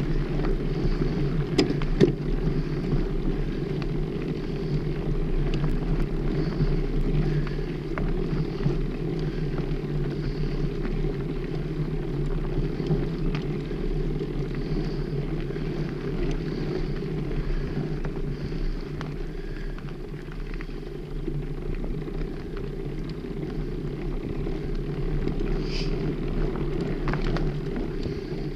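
Bicycle tyres rolling along a dirt forest trail: a steady, low rumble, with a few sharp clicks and rattles about two seconds in and again near the end.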